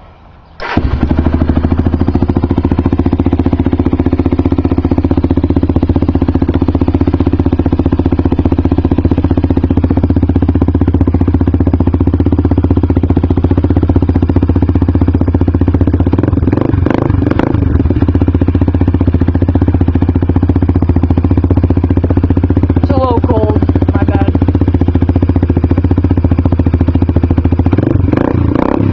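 Honda 300EX ATV's air-cooled single-cylinder four-stroke engine, stock inside and fitted with an HMF Sports Series slip-on exhaust, starting up about half a second in and then running loud and steady.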